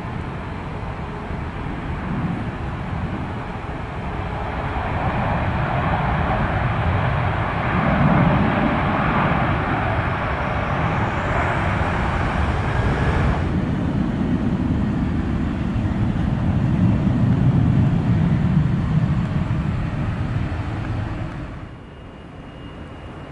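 Jet engines of a heavy airliner, a loud broad rumble with a higher hiss that builds over the first several seconds. About halfway through the hiss cuts off abruptly, the low rumble carries on, and it drops away near the end.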